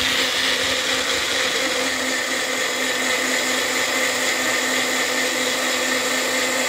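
Small cup-style countertop blender running steadily, puréeing mango: an even, loud whir over a steady motor hum.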